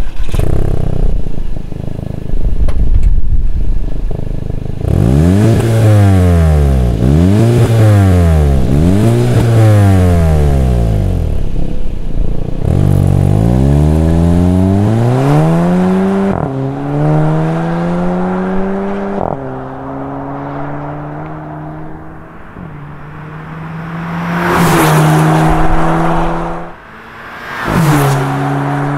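Turbocharged 2.0-litre four-cylinder of a 2017 VW MK7 GTI, heard through an Invidia Q300 cat-back exhaust. It runs at idle, then gives three quick revs in place, then accelerates away. The DSG gearbox's upshifts drop the engine note every few seconds. Near the end the car comes past close under acceleration.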